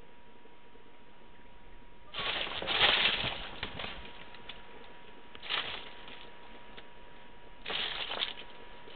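Crinkly lining of a fabric crackle-tube cat tunnel crackling and rustling as a cat scrambles about inside it, in three bursts: a longer one a couple of seconds in, then two short ones.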